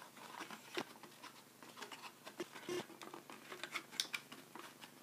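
Handling noise as a pocket projector is pulled out of its white box: faint rustling of packaging and scattered light taps and scrapes.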